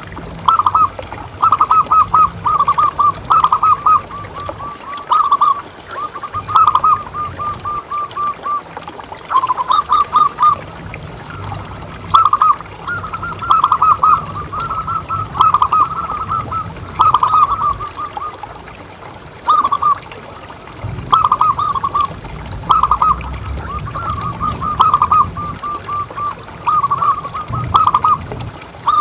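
Zebra doves (perkutut) singing: phrase after phrase of quick, staccato cooing notes with short gaps between, over a low rumble.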